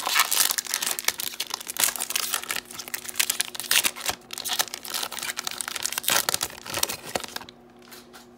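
A foil hockey trading-card pack being torn open and its wrapper crinkled, with the cards slid out and handled: a dense crackling that dies down about seven and a half seconds in.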